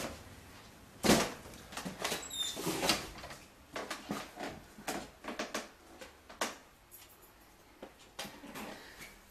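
Irregular knocks and clatters of household objects and debris being moved in an earthquake-damaged house. The loudest is a sharp bang about a second in, followed by a quick run of knocks and a brief high squeak, then fainter scattered clicks.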